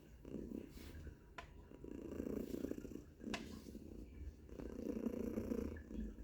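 Domestic cat purring in its sleep, loud and rough, swelling and fading in waves with its breathing.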